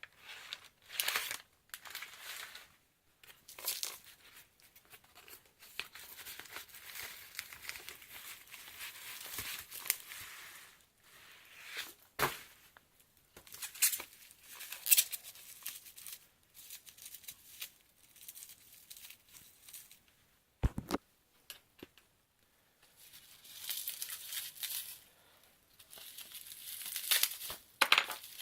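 Packaging being torn open and crinkled by hand as a parcel is unboxed: irregular rips and rustles with short pauses, and a single sharp knock about twenty seconds in.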